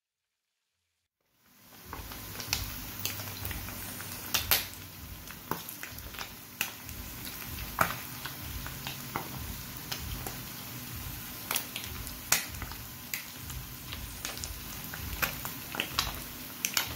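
Small whole sprats frying in hot oil in a nonstick frying pan: a steady sizzle with frequent sharp pops and spits of oil, starting about a second and a half in.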